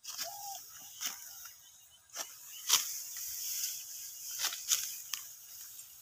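Dry rice stalks being cut by hand: a run of irregular sharp crunches and swishes, about seven in all, with rustling of the stalks between.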